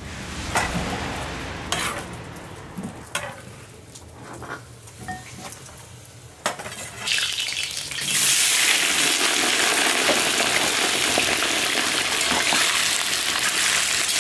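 Potatoes and carrots frying in hot oil in a cauldron. Knocks and clinks of a utensil on the pot come first, then about eight seconds in a loud, steady sizzle starts suddenly and keeps going.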